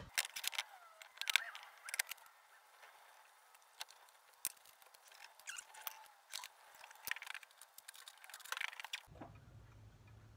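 Irregular light clicks and knocks of cast iron and steel clock case parts being handled and fitted together on a wooden bench, stopping shortly before the end.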